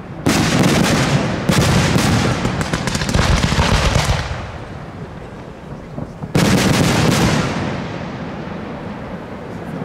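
Fireworks aerial shells bursting. Many sharp reports come in close succession for the first four seconds and then fade, and another loud burst about six seconds in rings out and dies away.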